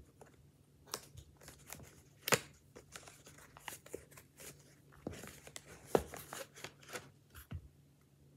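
Cardboard packaging of a pop-it toy being torn and pulled open: irregular tearing and rustling with scattered clicks, and two sharper snaps about two seconds in and about six seconds in.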